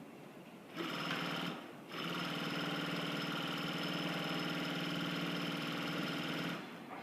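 Double-side cashmere sewing machine stitching in two runs: a short burst of under a second, a brief pause, then a steady run of about four and a half seconds before it stops.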